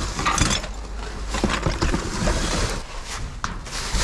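Rustling and a few short knocks as trash is handled and moved about in a dumpster.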